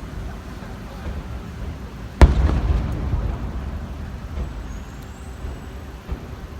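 An aerial firework shell bursting once with a sharp bang about two seconds in, followed by a low rolling rumble that slowly fades, over the low rumble of the display.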